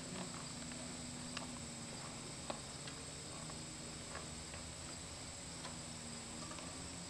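Faint outdoor background with a steady low hum and a steady high hiss, broken by scattered light clicks and taps, the sharpest about two and a half seconds in.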